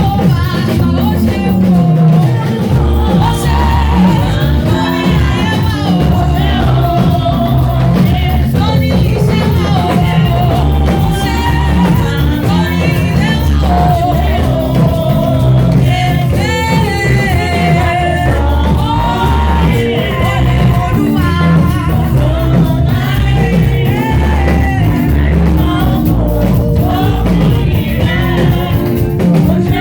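Live praise music: singers over a band with a steady drum and bass beat, running throughout.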